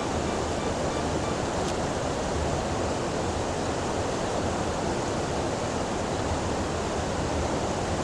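White water of a woodland river pouring over rocks at a small waterfall: a steady, even rush.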